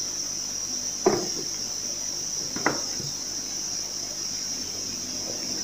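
Crickets chirping in a steady high trill, with two brief knocks, one about a second in and one near the middle.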